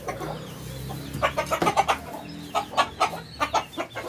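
Chickens clucking in quick runs of short, repeated clucks.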